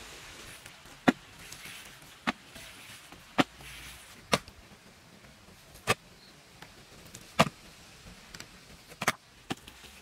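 Sharp chopping knocks from hand work on an earth-and-stone wall, about eight in all at uneven intervals of one to one and a half seconds, the loudest about a second in and past the middle.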